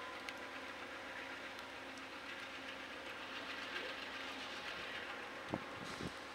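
Amtrak P42DC diesel locomotives idling while the train stands at the station, a steady engine hum. Two brief low thumps come near the end.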